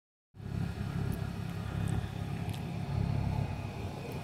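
2011 Hyundai Sonata engine idling, a steady low hum, with a few faint ticks over it.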